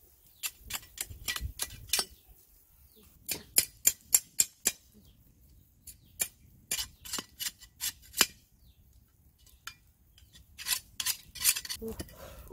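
A metal cleaver chopping and whittling a thin bamboo stick: sharp, clicking knocks several a second, in four short runs with pauses between.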